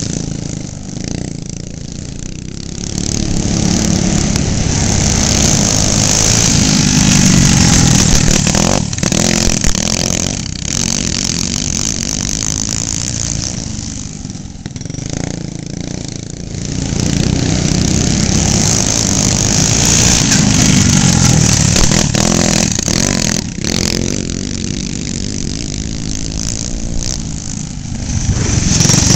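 Go-kart engines running around the track, swelling louder and fading roughly every ten to twelve seconds as karts come past. The engine pitch rises and falls with the throttle.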